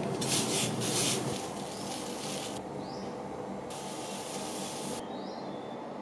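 Water bubbling at a rolling boil in a stainless steel pan over a gas burner, with dried flat noodles cooking in it. The hiss is loudest in the first second or so and changes abruptly a few times.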